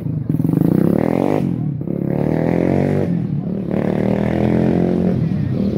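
Motorcycle engine accelerating past on the street, its pitch rising in three pulls with two short breaks between them.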